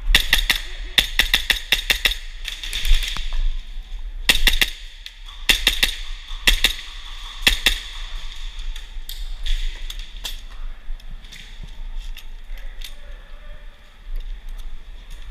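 Airsoft gunfire: rapid strings of sharp cracks in several bursts over the first eight seconds, then scattered single shots.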